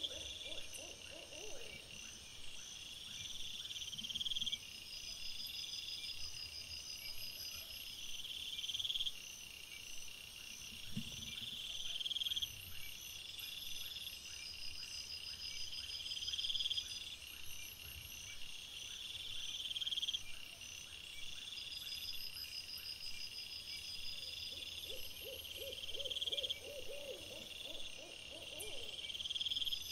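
Crickets and other night insects trilling steadily, swelling in bouts about every two seconds. A rapid run of low hooting notes sounds at the start and again near the end.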